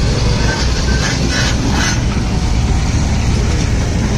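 Loud, steady vehicle rumble with road noise, and a brief rattle about one and a half seconds in.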